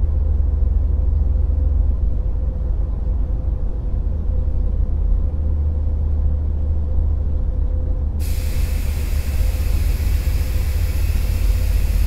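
A loud, deep, steady rumble with a constant hum held under it; about eight seconds in, a hiss joins it and carries on.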